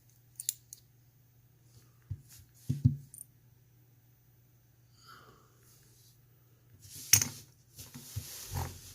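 Small metallic clicks and taps from a GEGE euro cylinder being taken apart by hand, the plug pushed out with a follower and its pins coming free. A louder click comes about seven seconds in, followed by a short rustle.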